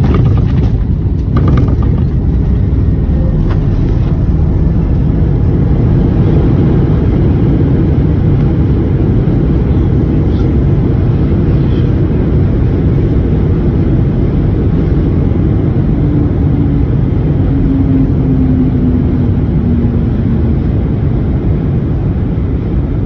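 Cabin noise of a Boeing 737-800 on its landing rollout: a loud, steady roar of the CFM56 engines and the wheels on the runway as the jet decelerates. A few knocks sound in the first two seconds, and an engine tone falls in pitch near the end.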